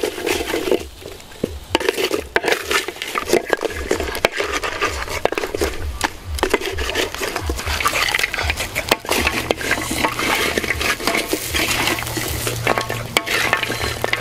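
Wooden spatula stirring and scraping meat in a metal wok over charcoal, with many quick scrapes and clicks over a sizzle that grows steadier in the second half.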